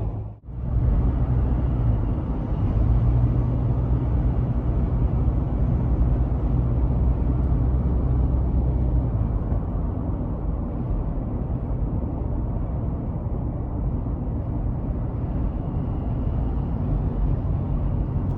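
Steady low rumble of a car driving, engine and road noise, which drops out sharply for a moment about half a second in.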